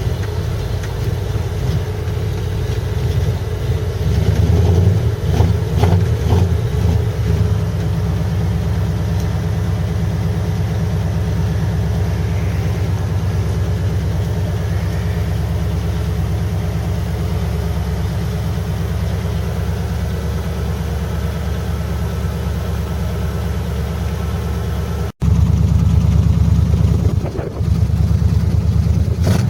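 Pickup truck engine running just after a cold start without the choke, picking up briefly about four to seven seconds in, then idling steadily.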